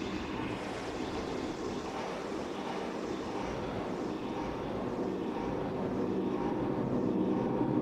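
Eurorack modular synthesizer patch processed through the Endorphin.es Ghost effects module: a steady, noisy wash with faint sustained pitches under it, growing louder near the end.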